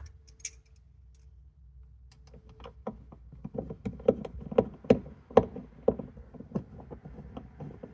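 Ratchet wrench clicking in short strokes, about two a second, as 10mm nuts are tightened.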